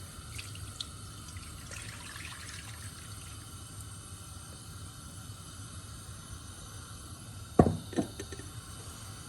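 Milk being poured into a cooking pan, a low liquid rush, followed by two sharp knocks near the end.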